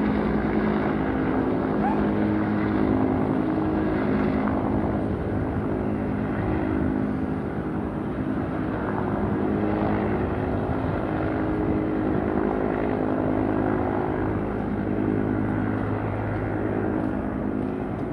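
Firefighting helicopter, flying with a water bucket slung on a long line, its rotor and turbine engine running with a steady hum.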